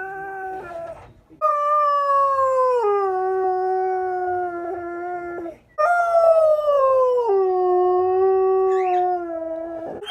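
Borzoi howling: the tail of one howl, then two long howls of about four seconds each, each starting high and sliding down in steps to a lower held note.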